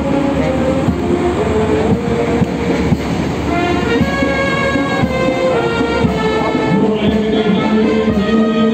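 Music with long held notes that step to a new pitch every second or so, over a steady background din.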